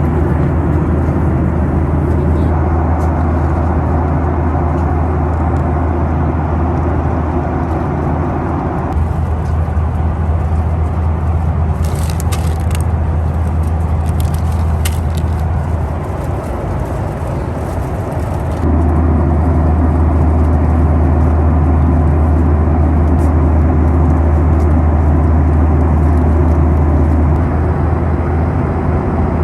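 Steady in-flight cabin drone of a Boeing 737-800 airliner: engine hum and airflow noise with a strong low rumble. The drone eases about nine seconds in, grows louder again a little before halfway, and has a few brief high crackles near the middle.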